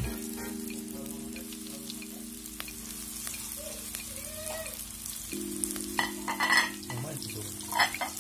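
Onion rings deep-frying in a wok of hot oil, sizzling steadily over a steady low hum. From about six seconds in, a utensil clicks against the rings and pan several times as they are turned.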